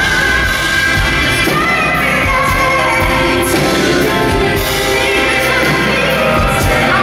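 Music with a voice singing over a steady beat.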